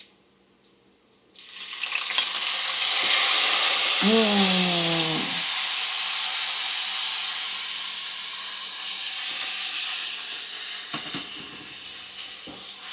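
Fish sauce poured into a hot pan of sautéing garlic and pork, bursting into a loud sizzle about a second in that slowly dies down. A brief voiced exclamation comes about four seconds in.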